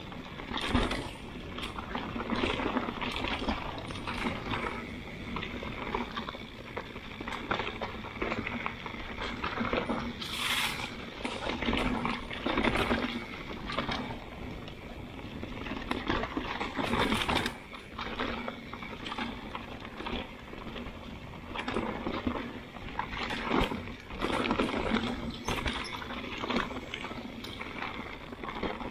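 Mountain bike riding fast down a dirt singletrack strewn with dry leaves and rocks: a steady noise of tyres rolling over the ground, broken by frequent sharp knocks and rattles as the bike hits bumps.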